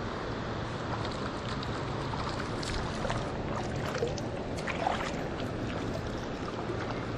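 Steady rush of a shallow, rocky river flowing, with a few faint short ticks near the middle.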